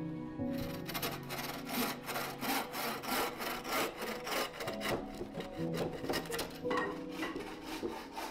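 Drawknife shaving the bark off a wooden pole in quick repeated strokes, the blade scraping along the wood.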